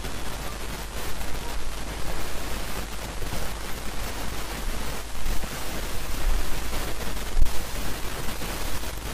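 Steady hiss with a fluttering crackle and a low hum underneath: constant background noise from the recording.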